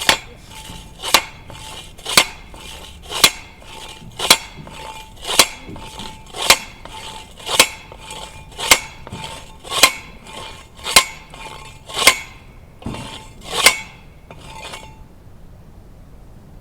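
Manual T-post driver slamming down on a steel post to drive it in: a steady series of about fourteen ringing metal clanks, roughly one a second, stopping about fifteen seconds in.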